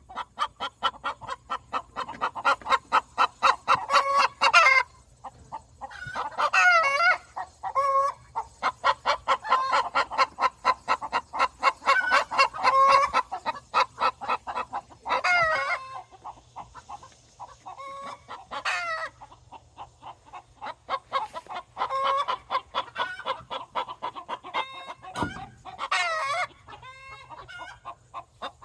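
Chickens clucking in fast runs of short calls, with a few longer drawn-out calls in between, and a dull thump near the end.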